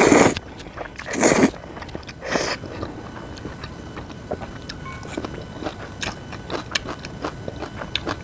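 Close-miked eating of noodles and crunchy fresh cabbage kimchi: three loud mouthfuls in the first two and a half seconds, then steady chewing with many small crisp clicks.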